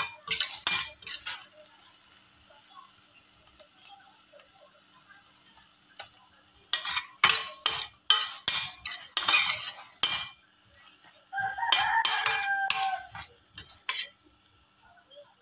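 Metal spoon scraping and stirring onions and chilli paste in a stainless steel frying pan, in bursts of quick strokes with a light sizzle between them. A rooster crows once, for about two seconds, about three-quarters of the way through.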